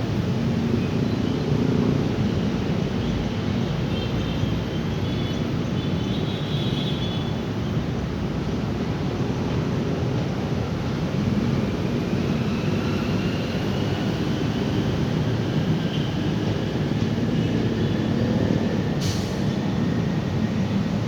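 Steady low rumbling noise with no clear single source. A faint whine glides slowly in pitch in the second half, and one sharp click comes near the end.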